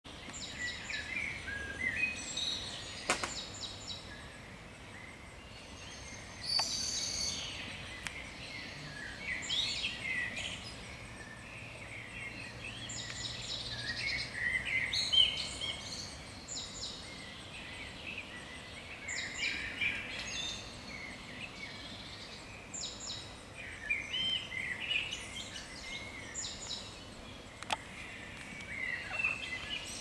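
Several songbirds singing in woodland, a continuous stream of short, high chirping and trilling phrases that overlap and vary. Two brief clicks stand out, about three seconds in and near the end.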